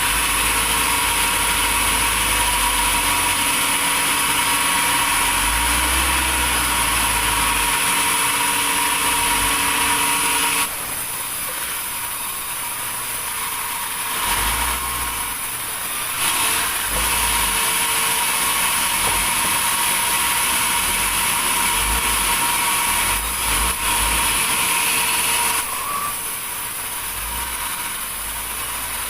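Sawmill machinery running steadily with a constant high whine. It is louder for the first ten seconds or so and again through the middle, dropping back a little in between and near the end.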